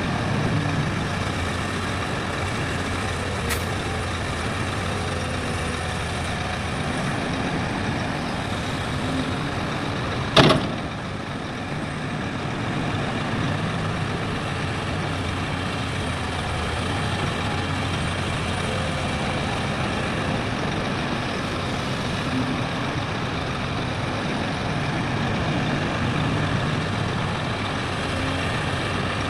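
Heavy diesel machinery running steadily, with one sharp bang about ten seconds in.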